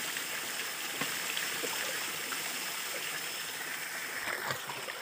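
Shallow forest stream running steadily over stones, with a few small splashes and rustles of hands working among wet leaves in the water.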